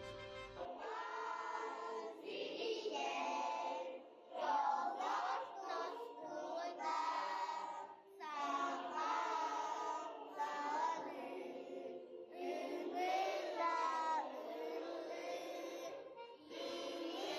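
A group of young children singing an anthem together, in phrases broken by short breaths every few seconds. A brass instrumental intro ends within the first second as the singing begins.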